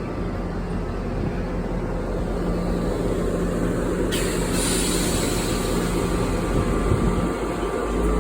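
New Jersey Transit diesel-hauled passenger train pulling out of the station, its locomotive engine running with a steady low drone that slowly grows louder. A short hiss, likely air, sounds about four seconds in.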